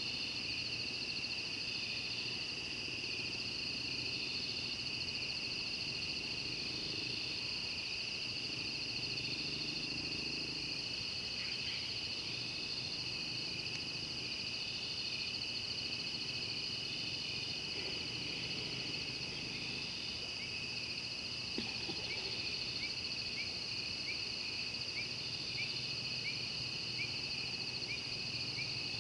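A night chorus of insects: a steady high-pitched trilling, with one caller sounding in short pulses about once a second. In the last several seconds a run of short, falling chirps comes about twice a second.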